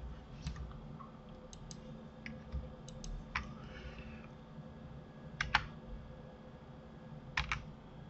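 Computer keyboard and mouse clicks, scattered and sharp, with two quick double clicks about five and a half and seven and a half seconds in, over a faint steady hum.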